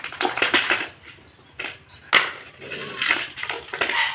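Irregular short clicks and clattering knocks as food is scooped from a metal pot and plastic pet bowls are handled on a tiled floor while puppies and cats feed.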